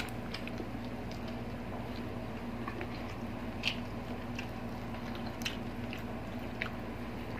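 Person chewing a mouthful of tomato, with scattered soft wet mouth clicks and smacks, over a steady low hum.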